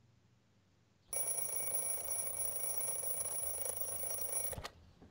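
Twin-bell alarm clock ringing: it starts about a second in, rings steadily for about three and a half seconds and cuts off suddenly.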